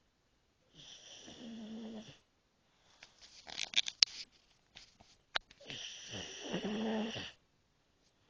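Sleeping pug snoring: two long buzzing snores about five seconds apart, each lasting about a second and a half. Between them comes a run of short clicks and snuffles.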